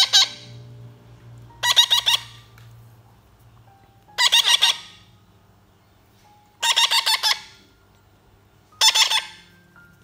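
Baby parrots squawking in quick chattering bursts, five bursts about two seconds apart, each a rapid string of harsh notes: the begging calls of chicks being hand-fed.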